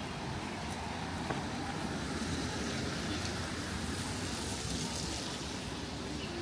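Steady city street noise of traffic passing on a wet road, an even hiss of tyres and engines.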